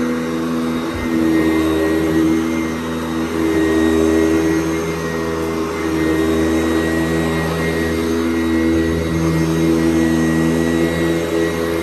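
Sanitaire SC889B upright vacuum cleaner running steadily, its motor's whine shifting slightly in strength.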